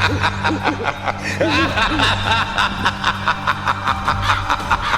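Background music with a steady, quick beat, with chuckling, snickering voices over it.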